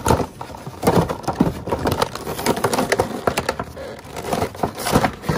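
Cardboard and plastic toy packaging being torn open and crumpled by hand, with irregular crackles, rips and knocks.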